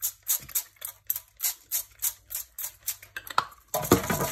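Background music percussion: soft, even shaker-like ticks at about four a second. Near the end a louder steady rustling noise with light clatter comes in.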